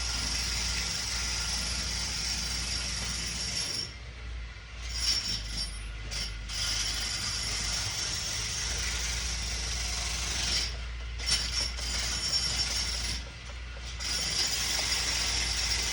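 Steady, loud background machinery noise, an even hiss over a constant low hum, which drops away briefly twice, with a few short knocks in between.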